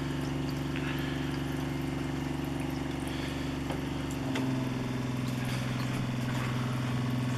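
A trailer's fresh-water pump running with a steady hum while tap water pours into a stainless-steel sink, pushing bleach-sanitizing solution through the water lines; the hum changes pitch about four seconds in.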